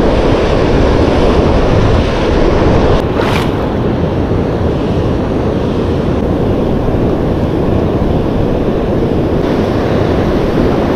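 Ocean surf washing around the wader, with wind buffeting the microphone: a steady, loud rush.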